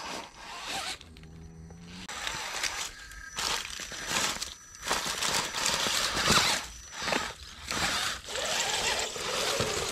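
Scale RC rock crawler climbing over rocks: its electric motor and gears whir in repeated bursts as the throttle comes on and off, with the tyres scrabbling over stone and dry leaves.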